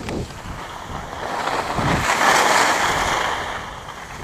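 Wind rushing over the microphone of a camera carried down a ski slope, together with the hiss of sliding over packed snow. It swells about two seconds in and eases off near the end.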